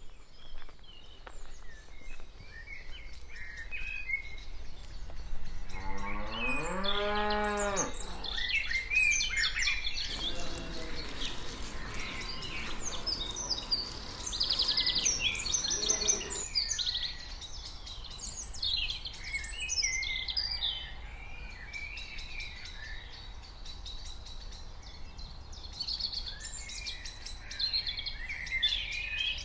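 A cow mooing: one long, low call that rises in pitch about five seconds in and holds for about three seconds, followed by fainter moos around ten and fifteen seconds in. Small birds chirp throughout.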